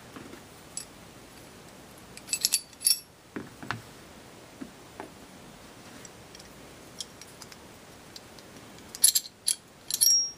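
Metal parts of field-stripped Ruger LCP and Kel-Tec P3AT .380 pocket pistols clicking and clinking as they are picked up and handled on a tabletop. There is a short run of sharp clicks a little over two seconds in and a louder run near the end, with a few faint ticks between.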